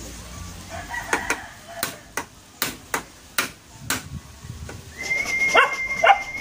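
A dog barking several times in quick succession, then a steady high whistle-like tone with two more short yelps near the end.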